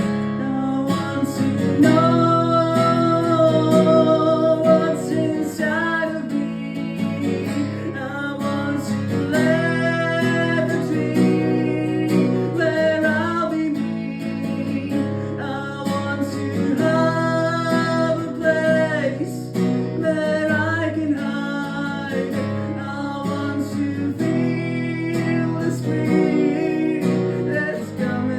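Acoustic guitar strummed while a voice sings over it.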